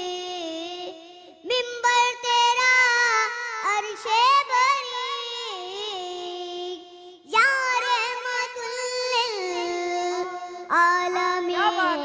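A boy singing a naat into a microphone, drawing out long held, wavering notes in ornamented phrases without words, with short breaks for breath about a second and a half in, about seven seconds in and near the end.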